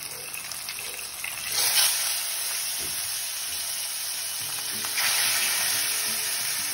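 Koi fish (climbing perch) sizzling as they fry in hot mustard oil in a pan. The sizzle is steady and flares louder about one and a half seconds in and again about five seconds in, as more fish go into the oil.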